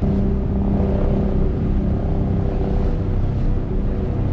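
A vehicle engine running steadily, a low drone with a few held tones over a rumble.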